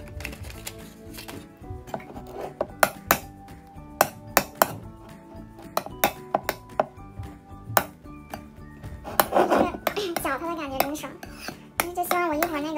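Metal spoon stirring thick shaving-cream slime in a ceramic bowl, clinking sharply and irregularly against the bowl's sides many times, over faint background music.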